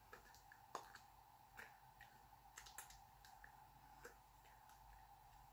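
Near silence: room tone with a faint steady hum and scattered faint clicks and taps from a person signing.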